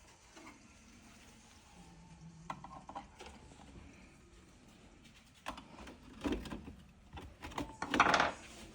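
Plastic parts of a motorcycle instrument cluster being handled and fitted together by hand: scattered light clicks, then louder knocks and rustling in the second half, loudest near the end.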